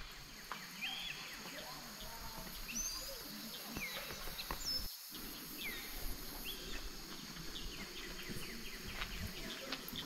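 Small birds chirping in short, scattered calls over steady outdoor background noise, with a brief dropout about halfway through.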